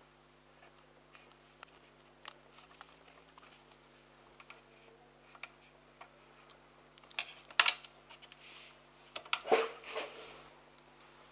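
Close handling noises as clear sticky tape is wrapped around a pair of wooden chopsticks: scattered small clicks and taps, with short louder crinkles of the tape a little past halfway and again near the end.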